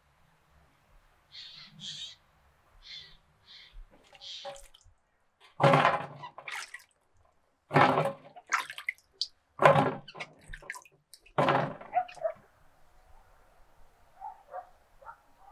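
Bell peppers being washed by hand in a steel bowl of water: four splashing, clattering bursts about two seconds apart. A few short bird calls come before them.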